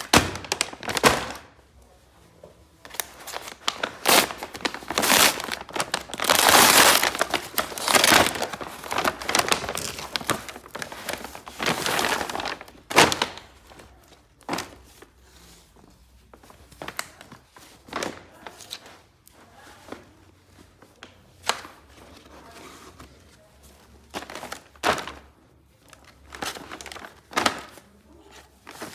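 Paper and plastic packaging crinkling and rustling as a parcel of clothes is opened and handled by hand. A dense stretch of crinkling runs through the first dozen seconds, followed by short, scattered rustles and soft knocks.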